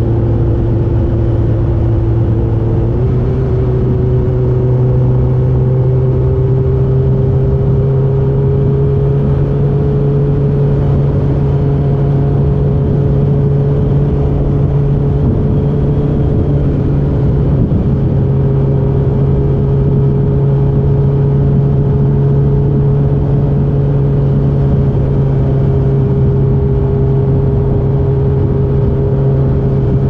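A 2006 Suzuki GSX-R1000 K6's inline-four engine runs through a full Yoshimura carbon-titanium exhaust while the bike cruises at steady throttle. The engine note rises slightly in pitch about three seconds in, then holds steady.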